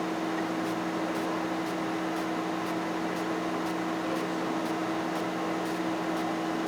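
A small electric motor running steadily with a low hum and hiss.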